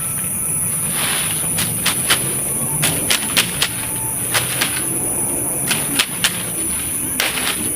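Irregular sharp clicks and cracks, several a second at times, over a steady high-pitched hiss.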